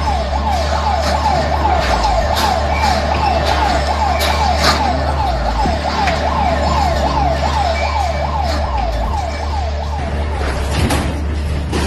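Earthquake warning siren sounding in fast rising sweeps, about four a second, over a steady low hum and scattered knocks; the siren fades out near the end.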